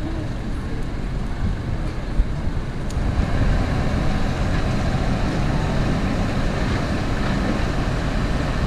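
Steady rumbling street noise with a heavy low rumble, growing louder and fuller from about three seconds in.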